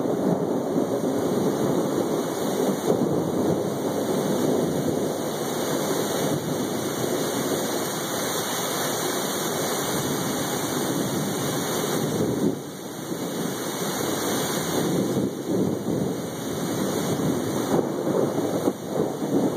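Thunderstorm at night: rain falling steadily, with rolling thunder that swells and fades, easing briefly about twelve seconds in.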